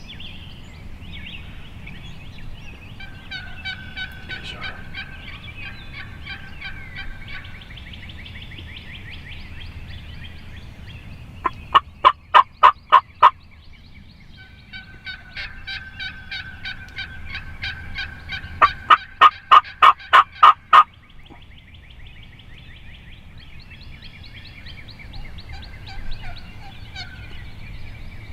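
Wild turkey yelping: two loud runs of evenly spaced yelps, about six in the first and about eight in the second, over fainter fast chattering bird calls.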